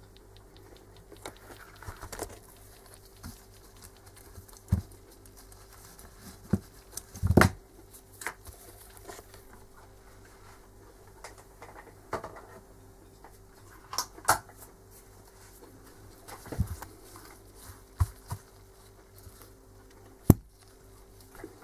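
Scattered knocks, taps and light clatter of things being handled and set down on a workbench, about a dozen irregular hits with the loudest about seven seconds in, over a faint steady hum.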